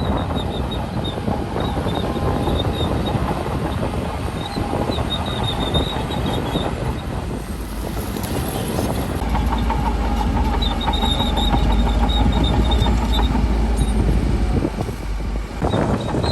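Crawler bulldozer working: a diesel engine running under load with clanking, squeaking steel tracks. The engine's deep rumble grows heavier from about nine seconds in and eases off near the end.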